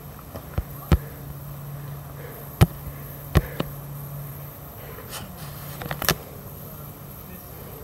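Irregular sharp knocks and clicks of walking down a rocky dirt trail, about six in all and unevenly spaced, the loudest a little over two seconds in. A steady low hum runs underneath.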